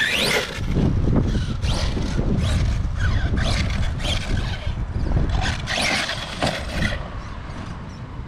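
Radio-controlled cars driving around the track, their motors whining up and down in repeated short bursts of throttle. The longest, strongest burst comes near the end.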